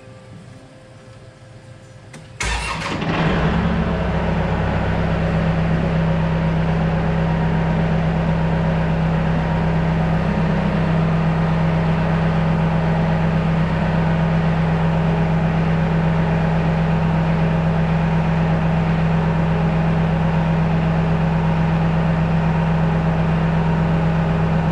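Kubota tractor engine starting about two and a half seconds in, catching at once, then running steadily at an even speed.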